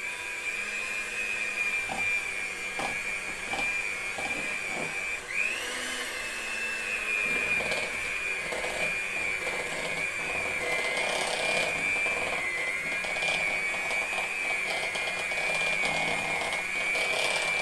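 Electric hand mixer running steadily with a high whine as its beaters whip frosting in a bowl. Its pitch dips briefly about five seconds in and comes back up, and there are occasional light knocks.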